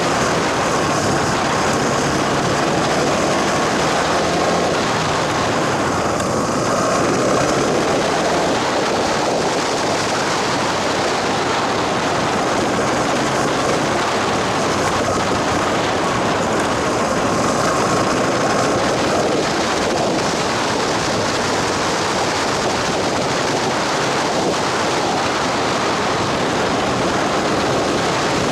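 Steady noise of a vehicle travelling along a rough gravel forest road: tyres on gravel and wind, with little clear engine note.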